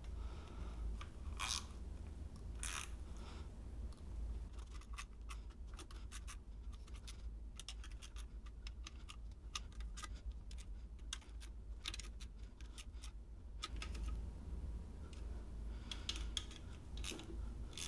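Hand socket ratchet clicking in quick runs as the bolts of a new aluminium oil pan are tightened. There are two stronger clicks early on, then long busy runs of clicks through the middle, a pause, and a few more runs near the end.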